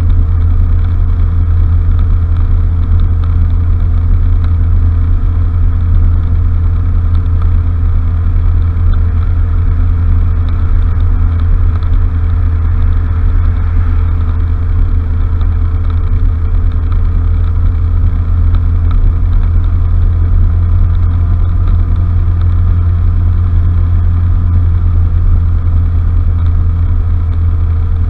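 Honda Fusion scooter's 250 cc single-cylinder engine running at a steady cruise while riding, heard as a loud, even low drone with no change in pitch.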